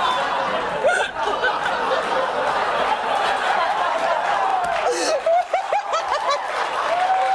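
Helpless laughter from a talk-show host and his guest over a studio audience laughing, many short laughs breaking through a steady wash of crowd laughter.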